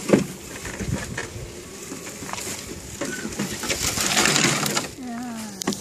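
Dry grass and bramble stems rustling and crackling as they are pushed through and crushed underfoot and under small wheels, with a louder swell of rustling about four seconds in.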